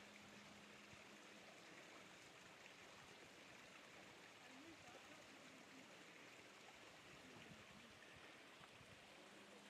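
Near silence: a faint, steady hiss of background noise, with a few very faint distant voices.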